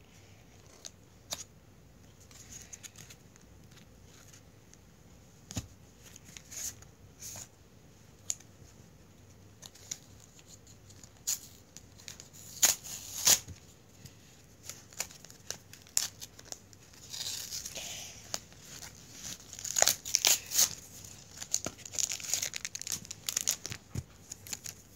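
Foil Pokémon booster pack wrapper being cut and torn open, crinkling in scattered bursts, loudest in a couple of sharp crackles about halfway through and in longer crinkling in the second half.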